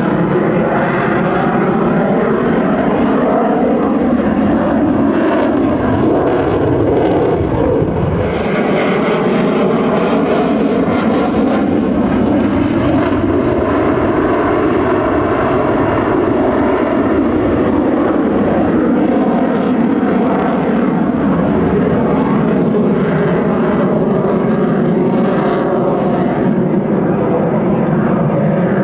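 F-22 Raptor's twin Pratt & Whitney F119 turbofan jet engines, loud and continuous throughout, its pitch slowly shifting as the jet manoeuvres.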